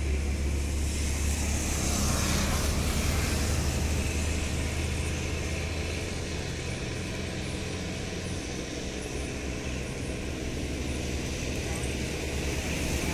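Steady low rumble of a running vehicle engine under an even hiss of outdoor background noise; the deepest hum drops away about eight seconds in.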